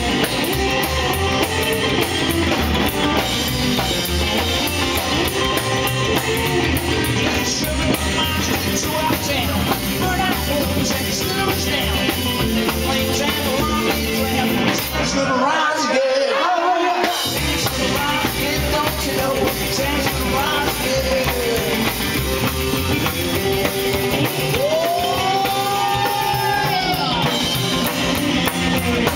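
Live rock and roll band playing: electric guitar, drums and singing. About fifteen seconds in, the drums and bass stop for about two seconds, then the full band comes back in.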